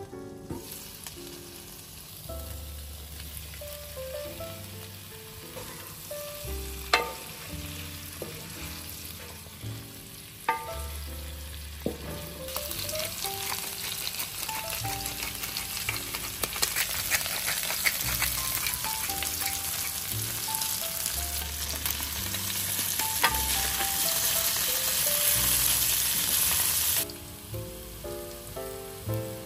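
Diced potatoes and pork frying in oil in a skillet, sizzling, the sizzle growing much louder about halfway through and cutting off abruptly shortly before the end. A couple of sharp clicks in the first half, over soft background music with piano-like notes.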